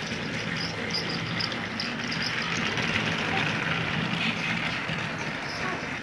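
Battery-powered Thomas & Friends TrackMaster toy train engines running on plastic track: a steady small-motor whir with scattered light clicks.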